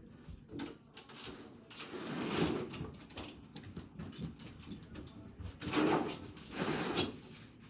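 A door opened and, a few seconds later, shut again, each a brief noisy swish.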